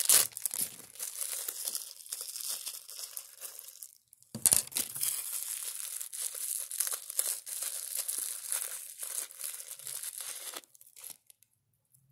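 Wrapping around jewelry being crinkled and torn open by hand: continuous rustling with a short pause about a third of the way in. It stops shortly before the end.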